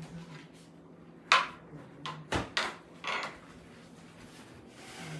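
A few sharp knocks and clatters of tableware on a wooden table as a spoon and a plastic plate are handled, the loudest about a second in and the rest in quick succession over the next two seconds, over a faint steady low hum.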